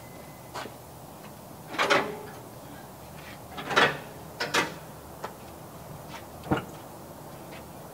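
A handful of separate rustles and clunks, a few seconds apart, ending in one sharp knock: a canvas tool bag being set down on the seat and rummaged through for a socket.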